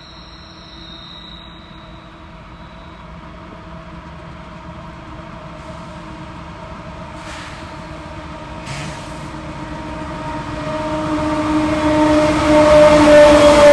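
Union Pacific diesel freight locomotive approaching with a train of covered hoppers: the last of its horn blast fades out in the first couple of seconds, then the steady drone of its diesel engine grows louder and louder as it draws near, loudest at the end.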